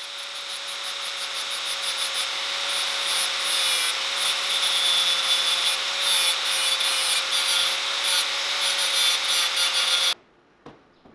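An electric power tool grinding or sanding under load: a steady motor tone under a loud abrasive hiss that builds over the first few seconds and then stops abruptly about ten seconds in.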